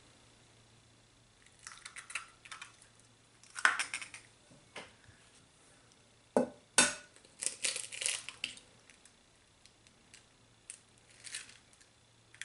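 Raw eggs being cracked and their shells pulled apart over a glass mixing bowl: sharp taps and crackling crunches in several short bursts.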